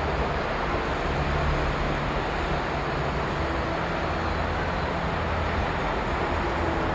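Steady rumble of road traffic, with the low drone of lorry engines rising and falling under it.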